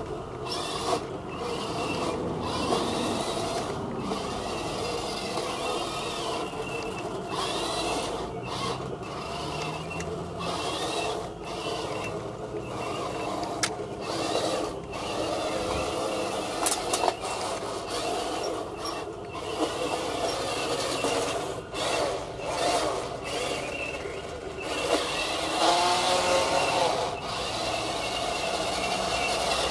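Radio-controlled model tank with plastic motor and gears running: a steady mechanical whirring with scattered clicks and rattles, and a pitch that wavers up and down for a couple of seconds near the end.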